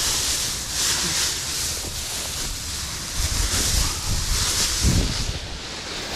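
Dry, dead ornamental grass rustling as it is pushed through and handled, with wind rumbling on the microphone.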